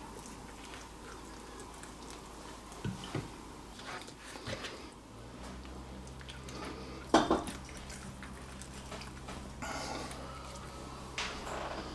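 Kitchen handling sounds as a raw whole chicken is worked by hand: soft squishes and a few light knocks, the loudest about seven seconds in. A low steady hum comes in about five seconds in.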